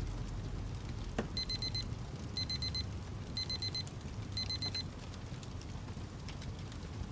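Electronic alarm beeping as the countdown timer runs out: four bursts of four quick high beeps, about one burst a second. Under it a fire crackles steadily.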